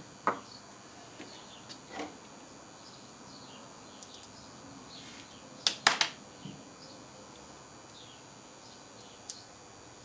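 Sharp plastic clicks and knocks as the fridge's plastic back panel is screwed back in place: single clicks near the start and about two seconds in, a loud cluster of clicks about six seconds in, and one more near the end. Faint short high chirps are heard throughout.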